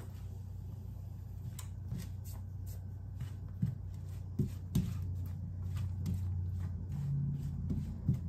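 A silicone spatula stirring and scraping onions, mushrooms and garlic sautéing in butter in a nonstick frying pan, with scattered light scrapes and taps. A steady low hum runs underneath.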